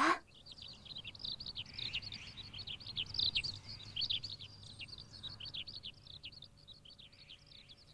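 Small birds chirping: a dense run of short, high chirps overlapping one another, thinning out near the end.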